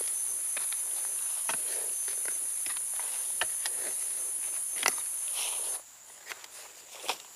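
A short-handled shovel chopping and scraping into forest soil, a scatter of sharp strikes with the loudest about two-thirds of the way through. Underneath, a steady high insect drone cuts off suddenly about three-quarters of the way through.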